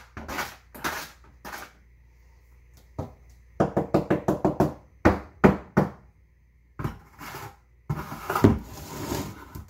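A trowel scraping and knocking against the inside of a plastic 5-gallon bucket while scooping out thinset mortar: irregular taps, a quick run of about six knocks a little over three seconds in, and a longer scrape near the end.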